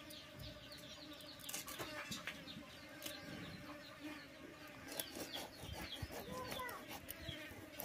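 Small birds chirping repeatedly, with scattered scratchy scrapes as fish scales are rubbed off against an upright boti blade. A sharp click, the loudest sound, comes right at the end.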